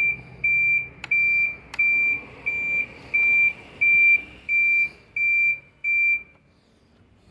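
Electric scooter's electronic beeper sounding a series of about ten short, evenly spaced high beeps, roughly one and a half a second, that stop shortly before the end. Two sharp clicks come about a second in.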